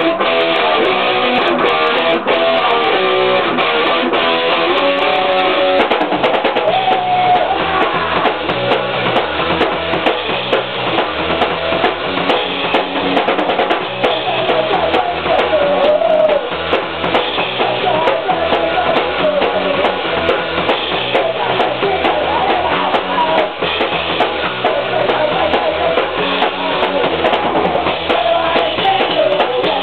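Rock band playing live in a small rehearsal room: electric guitar and drum kit, with the drummer singing into a microphone. The low end fills out about seven seconds in.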